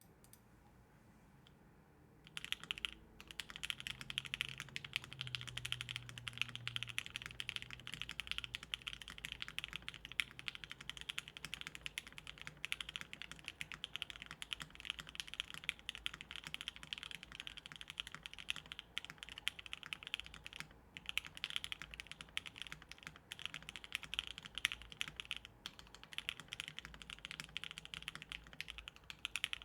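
Fast, continuous typing on a custom mechanical keyboard, a Monokei x TGR Tomo with lubed JWK Lilac linear switches, polycarbonate plate, o-ring mount and GMK keycaps. It starts about two seconds in after a quiet moment and goes on as a dense stream of keystrokes, with a few brief pauses.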